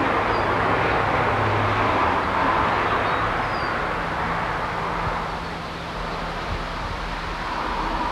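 Steady rush of wind, easing slightly in the second half, with a few faint high chirps.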